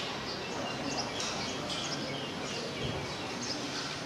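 Small birds chirping repeatedly over a steady background hiss.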